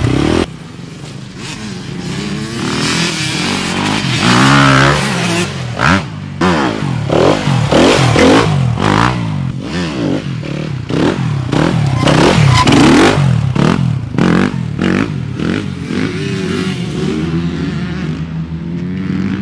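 Motocross dirt bike engine being ridden hard: it builds up over the first few seconds, then revs up and drops back again and again, about once a second, as the throttle is opened and shut.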